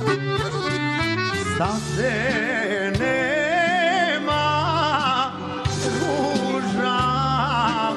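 Serbian folk song performed live by a band: fast instrumental note runs open it, then a lead melody with heavy vibrato carries over a steady bass.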